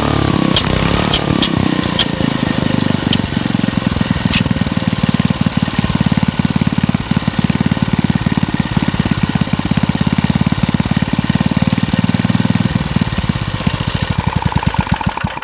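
Single-cylinder Briggs & Stratton engine for a Bolens tractor running steadily after a rebuild, with a brief change in speed at the start as the carburetor linkage is worked and a few sharp ticks in the first seconds. Near the end its firing slows and it dies out.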